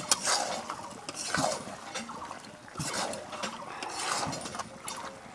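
A spatula stirring turtle meat and potatoes in thick gravy in a metal karahi, scraping and clinking against the pan in irregular strokes, keeping the curry from catching on the bottom.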